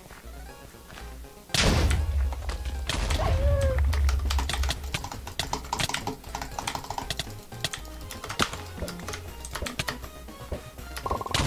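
Mechanical keyboard keys, red switches, clacking in quick irregular strokes as someone plays a game. About one and a half seconds in, louder music with a heavy bass comes in over the clicks.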